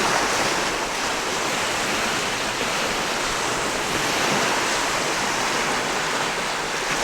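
Steady rushing of Lake Michigan waves washing on the shore, an even wash of noise without distinct breaks.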